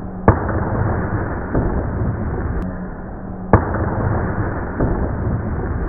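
Two loud bangs about three seconds apart: water balloons bursting on asphalt after falling eight floors. A steady low rumble runs underneath.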